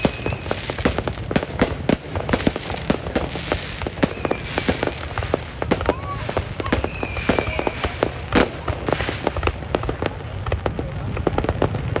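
Fireworks going off: a dense, rapid run of crackling bangs with a few short whistling tones, thinning out near the end.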